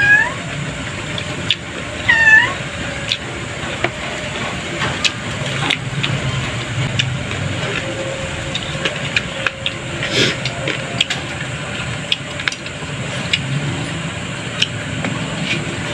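A cat meowing twice, short calls about two seconds apart near the start, with light clicks and taps of eating through the rest.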